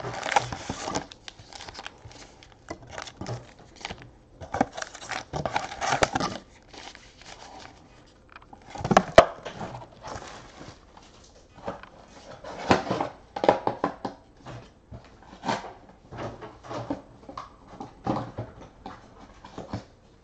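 2018 Panini Classics Football packs in their wrappers being handled: irregular crinkling and rustling with light taps as the packs are pulled from the box and stacked on the table.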